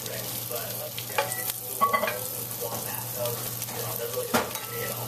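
French toast sizzling as it fries in an oiled pan, with a few sharp taps and scrapes of a plastic spatula against the pan, the sharpest about four seconds in. A low steady hum runs underneath.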